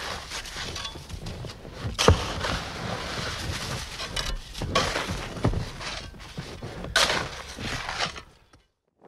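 Experimental sound-art noise: a crackling, rustling texture with sharp knocks, the loudest about two seconds in and another about seven seconds in. It fades out and stops just before the end.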